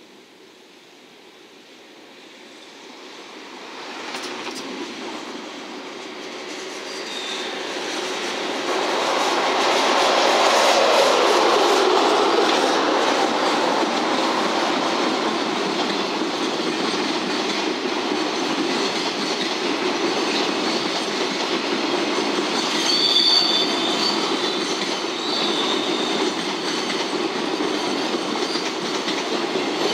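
A freight train hauled by an EF210 electric locomotive approaches and passes, growing louder over the first ten seconds. Then a long string of flat wagons loaded with steel rails rolls steadily by, wheels clacking over the rail joints, with short high wheel squeals about 23 and 25 seconds in.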